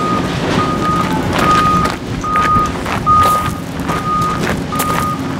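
Forklift reversing alarm beeping, one steady pitched tone repeating a little more than once a second over the low running of an engine; the beeps stop near the end.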